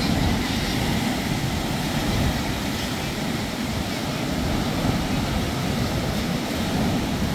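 Rough monsoon sea surf breaking and washing up onto the shore, a steady rushing noise with a heavy low rumble from wind on the microphone.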